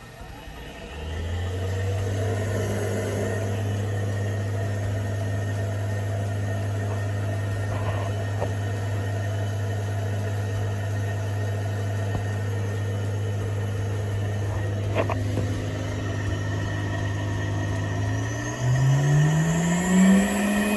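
Hitachi drum-type washing machine running, its motor giving a steady low hum, with a couple of faint knocks. Near the end the drum motor speeds up, its tone rising steadily in pitch and getting louder.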